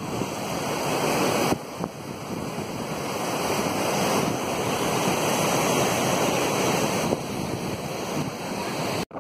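Swollen, flooded Cauvery river rushing in turbulent rapids, a steady wash of water noise, with wind buffeting the microphone.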